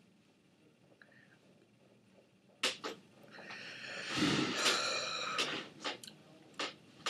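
A person's harsh, noisy vocal sound lasting about two seconds in the middle, with short sharp sounds just before and a few after.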